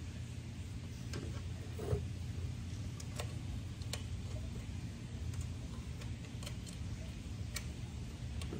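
Scattered small metal clicks and taps, about ten, as an Allen bolt and fittings are handled and worked into the end of a laser engraver's metal frame rail; the loudest comes a little under two seconds in. A steady low hum runs underneath.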